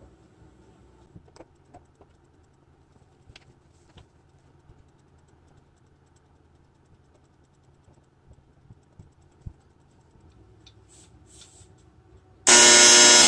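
Light clicks and taps of plastic players being set down on an electric football game's metal field, then near the end the vibrating board switches on with a sudden, loud, steady electric buzz.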